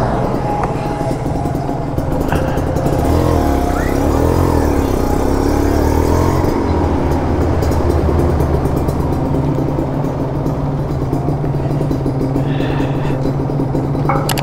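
Motorcycle engine running at low speed, then settling into a steady idle about halfway through, with music playing alongside.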